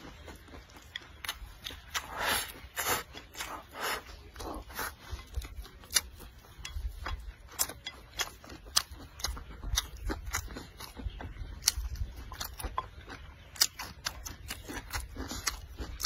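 Close-up chewing and mouth sounds of a person eating rice, with many short clicks and scrapes of wooden chopsticks against a ceramic bowl as the rice is pushed into the mouth.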